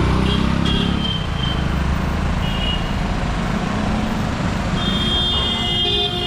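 Busy city street traffic: motor vehicle engines running close by, heaviest in the first second, with short vehicle horn toots twice early on and a longer horn blast near the end.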